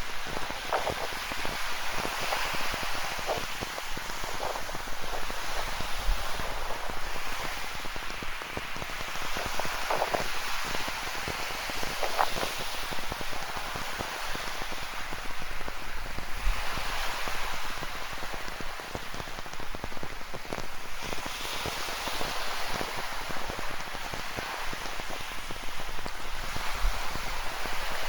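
Steady rain falling, with close raindrops pattering in irregular ticks, over the wash of ocean surf that swells up now and then.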